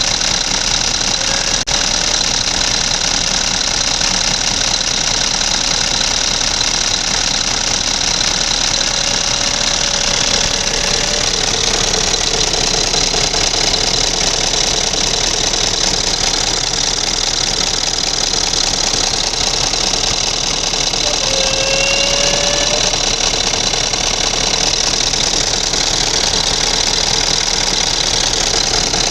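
Scania G480 EGR diesel engine running steadily, with a strange short rising squeak that comes and goes a few times over it. Its cause is unknown; it is cat-like enough that the uploader jokes about a hidden cat.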